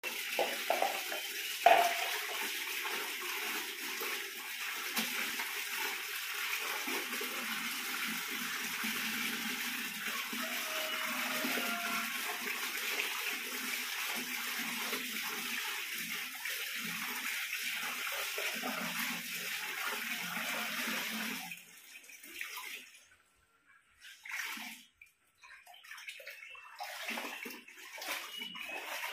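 Water running steadily from a tap into a basin of laundry, with a sharp knock about two seconds in. The running water stops about two-thirds of the way through, and then comes irregular splashing and sloshing as clothes are worked by hand in the water.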